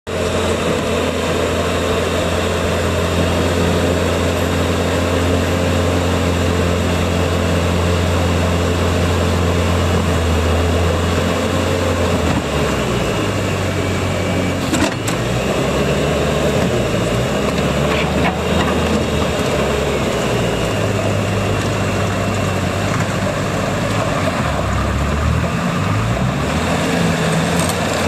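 Bobcat T590 skid steer's 66 HP Doosan diesel engine running, steady at first, then its speed rising and falling repeatedly from about twelve seconds in, with a couple of short knocks.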